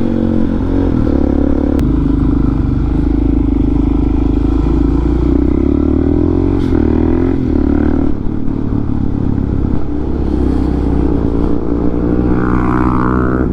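Motorcycle engine running while under way, holding a fairly steady speed, then revving up as it accelerates over the last couple of seconds.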